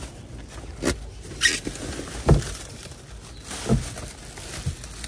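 Plastic trash bag rustling and crinkling as gloved hands grab and pull at it, with a few dull knocks; the loudest knock comes about two seconds in.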